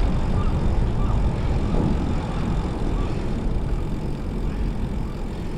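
Steady wind rumble buffeting the microphone of a moving bike rider, a dense low roar with road noise.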